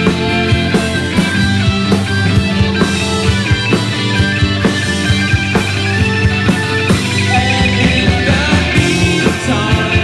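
Live rock band playing: electric guitar, bass guitar, keyboard and drum kit with a steady beat.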